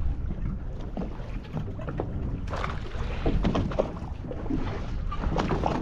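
Water lapping and slapping against a small boat's hull in irregular splashes, over a steady low rumble of wind on the microphone.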